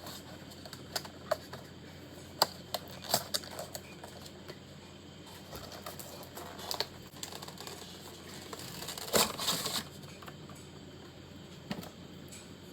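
Hands handling items and packaging on a desk: scattered light taps and clicks, with a louder noisy scuffle lasting about a second near nine seconds in.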